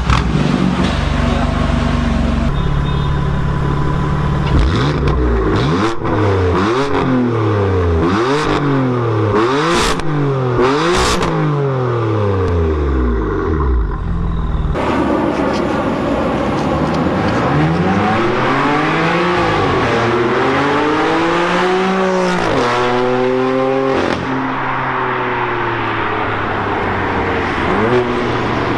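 BMW F82 M4's twin-turbo inline-six through an Armytrix cat-back exhaust, idling and then revved in a quick series of blips about once a second. After that come a few slower, longer revs, and it settles back to idle.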